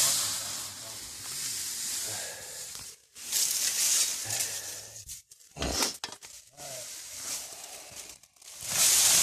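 Dry leaves rustling and crunching and clothing scraping on rock as someone climbs down into a narrow rock opening, with rubbing noise from handling the phone. The sound drops out briefly three times.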